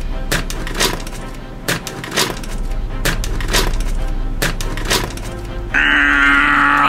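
Background music with a steady drum beat; near the end a loud, held, pitched note comes in.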